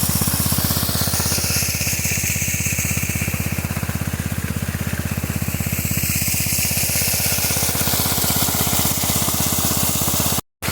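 Irrigation pump engine running steadily with a rapid, even beat, pumping water through the pipe into the rice field; the sound cuts out briefly near the end.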